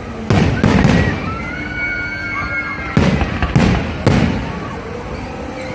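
Fireworks bursting: five loud bangs, two about a second apart at the start and three more between about three and four seconds in, each trailing off in a rumbling echo, with thin whistling tones in between.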